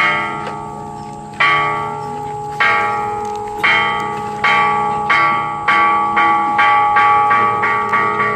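Bronze Buddhist temple bell struck over and over with the same set of ringing tones, about fourteen strikes that come faster and faster, from more than a second apart to about three a second, each ringing on into the next.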